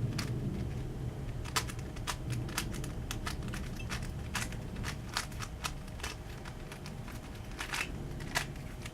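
DaYan Megaminx plastic twisty puzzle being turned by hand: an irregular run of sharp plastic clicks and clacks as its faces turn.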